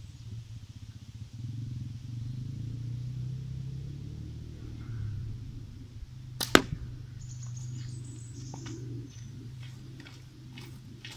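One slingshot shot: a small snap, then a sharp, loud crack a split second later as the ball is loosed and hits at the target. Near the end, footsteps crunch on gravel.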